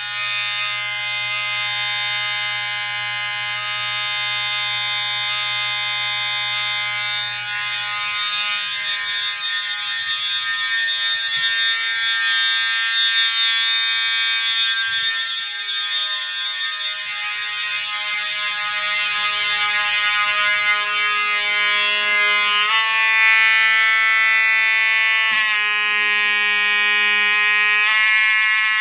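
Several fire alarm horns, among them Edwards Integrity horns, sounding together on a continuous tone, very loud and steady. A few small shifts in pitch come in the last several seconds, and the sound stops abruptly at the end.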